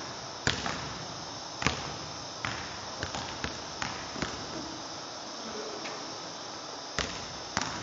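Basketball dribbled on a hardwood gym floor: a run of uneven bounces over the first four seconds or so, then a pause and two more thuds near the end.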